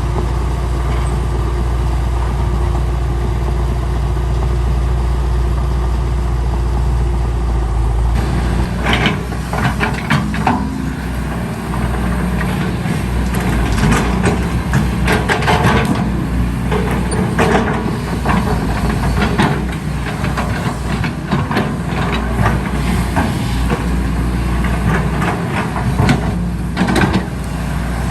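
A heavy earthmoving machine's diesel engine running steadily. From about eight seconds in, repeated clanks and knocks sound over the engine as the machine works.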